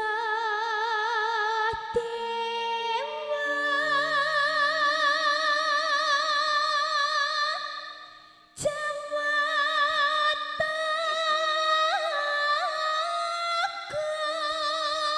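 Female sinden singing a slow Javanese langgam/campursari melody, holding long notes with a wide vibrato over sustained keyboard accompaniment notes. There is a brief gap about eight seconds in, then the singing goes on.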